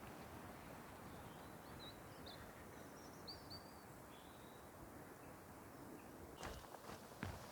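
Faint outdoor ambience: a steady low rumble, with a few short, high bird chirps in the middle and a couple of brief knocks near the end.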